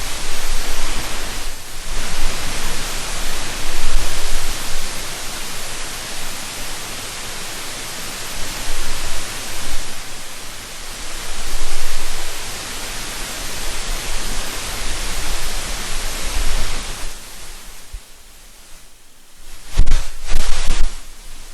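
Loud static hiss from a phototransistor plugged into a digital voice recorder and aimed at a candle flame. The hiss swells and fades, with a low hum underneath. It thins out briefly near the end, then a few short louder bursts follow.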